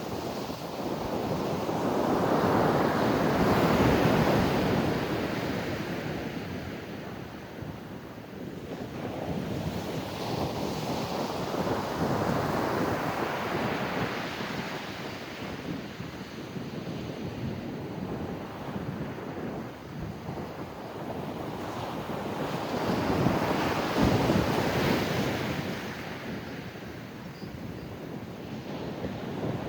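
Ocean surf breaking on a sandy beach: waves crash and wash in and out, with big breakers swelling up early on, again near the end, and a smaller one in between. Some wind rumbles on the microphone.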